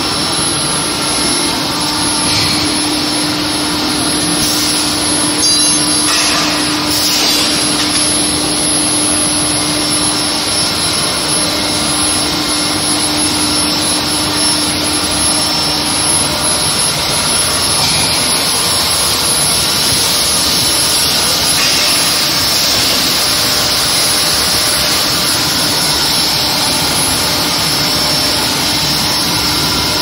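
Induction hardening and tempering line for threaded bar running: a loud, steady rushing machine noise with a steady hum that fades out about halfway through, and a thin high whine throughout.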